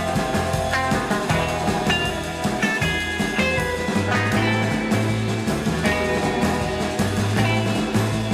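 Background rock music with electric guitar, a bass line and drums.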